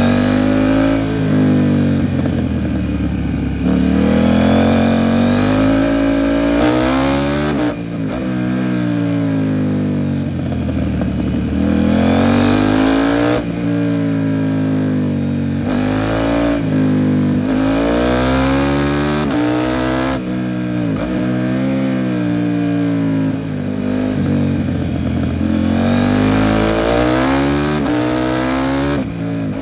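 KTM 790 Duke's parallel-twin engine through an Arrow Pro Race titanium exhaust, revving up and falling off again and again as the bike accelerates and slows through bends, with short breaks and pitch drops at gear changes.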